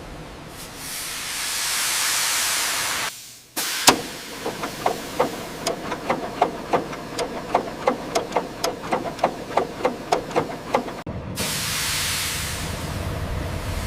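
Steam train sounds: a hiss of escaping steam swells and fades, then after a brief gap a sharp knock and a run of evenly spaced clicks, about four a second, of wheels passing over rail joints, before the steam hiss swells up again near the end.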